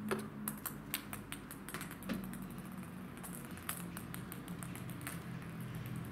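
A quick run of light, irregular clicks and taps, several a second and sharpest in the first second, over a low steady hum.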